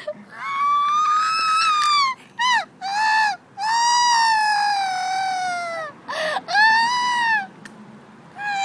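High-pitched wailing cries: about seven drawn-out wails, some short and some over two seconds long, each rising slightly and then falling away at its end.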